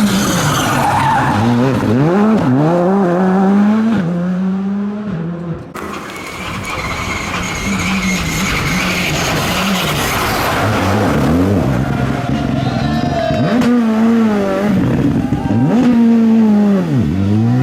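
Rally cars at full throttle on a special stage, the engine note climbing and then dropping sharply again and again as they shift gears and lift off, with tyres squealing. An abrupt change a little under six seconds in brings on another car.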